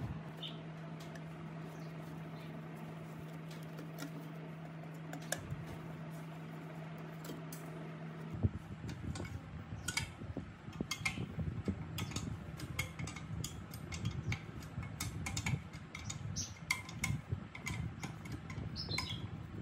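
A steady low hum, which stops suddenly about eight seconds in. Then come light metallic clicks and taps as an open-end wrench works the mounting bolts on the bench drill's electric motor, with birds chirping now and then.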